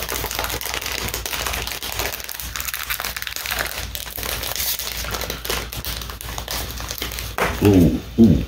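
Crinkling of a plastic snack wrapper, a Hello Panda cookie packet, as it is handled and opened, with rapid irregular crackles throughout.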